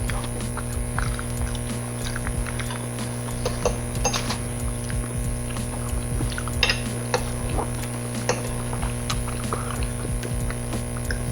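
Cutlery clinking and scraping against plates during eating, heard as scattered short clicks over a steady low hum.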